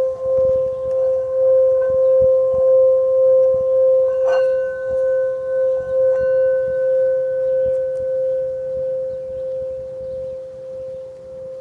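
Singing bowl ringing one steady tone that wavers in loudness about twice a second, fading slowly over the last few seconds. A brief click about four seconds in adds a higher ringing note.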